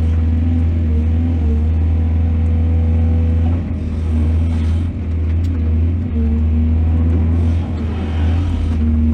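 Large mining excavator's diesel engine running with a steady low drone. The note wavers and dips with added hiss about four and eight seconds in, as the machine's load changes.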